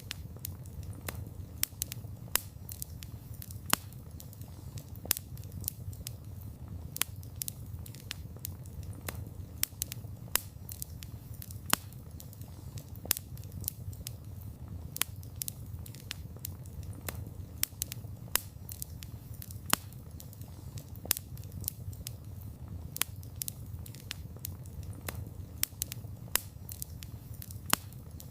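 Wood fire burning with frequent sharp crackles and pops, several a second, over a steady low rumble of the flames.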